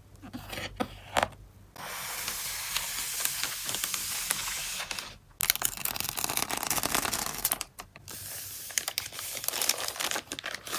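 Plastic packing materials being handled: three long stretches of crinkling, rustling noise, with a few light clicks at the start.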